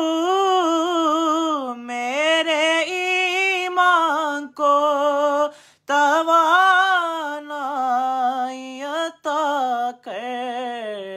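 A man singing an Urdu devotional kalam solo, with no accompaniment. He holds long notes and ornaments them with wavering runs, breaking off a few times to take short breaths.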